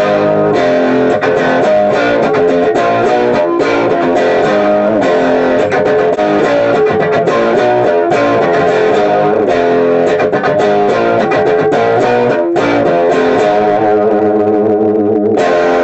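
Loud background music led by guitar, cutting off near the end.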